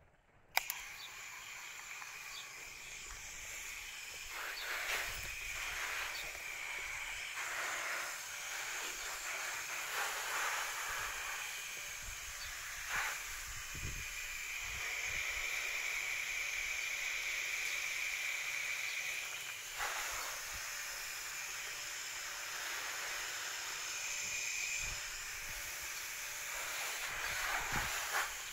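A garden hose's shower-spray nozzle spraying water onto leafy plants: a steady hiss that starts suddenly about half a second in and swells and dips as the spray moves.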